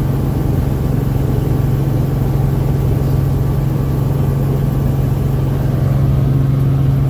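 Helicopter engine and rotor heard from inside the cabin: a steady drone with a strong low hum, a little louder near the end.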